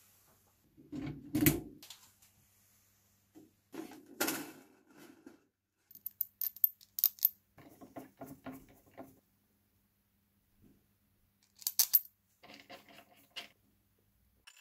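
Snare drum hardware being fitted by hand: a dull knock as the chrome hoop goes down onto the drum, then scattered small metallic clicks and clinks from the snare strainer, throw-off and strap screw being handled.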